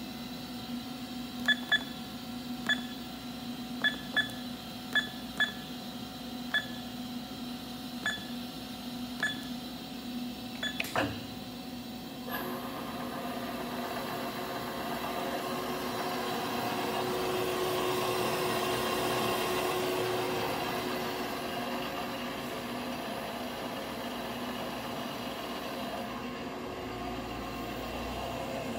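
Haas CNC control keypad beeping, about a dozen short beeps at uneven spacing, then a single knock. Then the mill's spindle starts on its warm-up program: a steady running hum with a thin high whine, which swells for several seconds and then eases.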